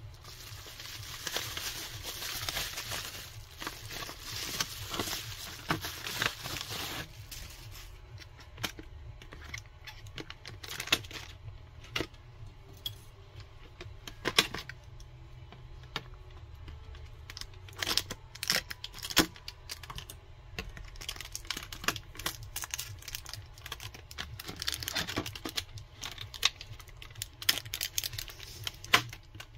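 Bubble wrap crinkling as it is handled and unwrapped for about the first seven seconds. Then come scattered sharp clicks and crackles of a clear plastic clamshell pack being cut with scissors and pried open.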